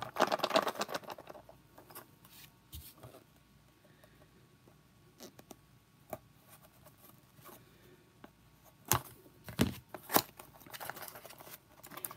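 A small cardboard box being opened with a folding knife: a loud tearing rip in the first second, then quiet scratching and ticks as the blade works through the tape. Near the end come a few sharp clicks and knocks and the rustle of the cardboard flaps being pulled open.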